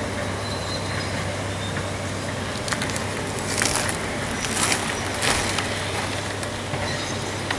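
Heavy demolition machinery running steadily with a low hum, with several bursts of sharp cracking and crunching between about three and five and a half seconds in, as of concrete or debris being broken.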